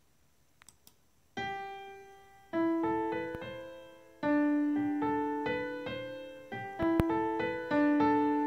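A sampled Steinway grand piano, a software instrument in GarageBand, plays back a slow instrumental melody. It starts about a second and a half in, with a new note or chord struck roughly every second and each one left to ring and fade. Two faint clicks come just before the piano starts.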